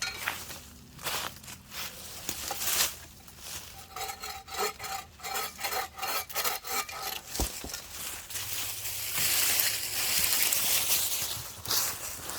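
Hand saw cutting through wood, a run of quick, even strokes, about three a second, in the middle of the stretch.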